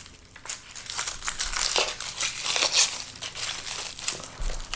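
Dry papery outer skin being peeled by hand off a large Vidalia onion, crinkling and crackling irregularly.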